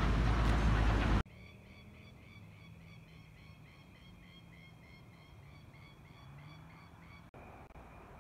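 Steam train running loudly, cut off abruptly about a second in. After it comes a faint high chirp repeating about three times a second over a low hum.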